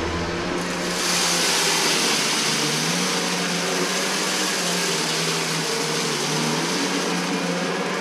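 Shark NZ801UKTSB Anti-Hair Wrap upright vacuum cleaner running on its carpet setting, pushed back and forth over a rug as it sucks up scattered debris. A steady airy rush over a low hum that wavers slightly in pitch, the hiss growing louder about a second in.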